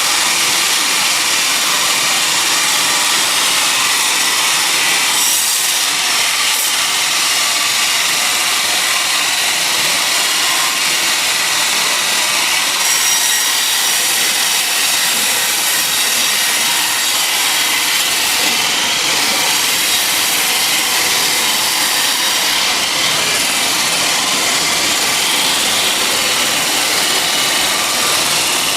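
Sawmill saw cutting through a teak log: a loud, steady, unbroken hiss, strongest in the high range.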